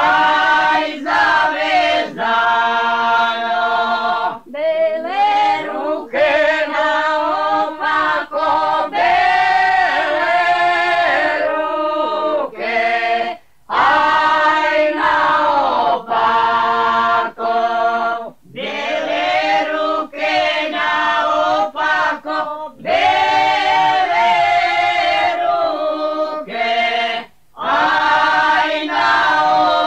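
Folk singing group of several voices singing a traditional Slavonian song together in long held phrases, with short breaks between the lines.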